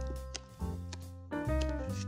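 Instrumental background music: sustained pitched notes over a low bass line.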